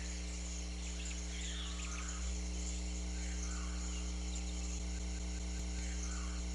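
Faint outdoor nature ambience over a steady low hum, with a few soft, brief chirps.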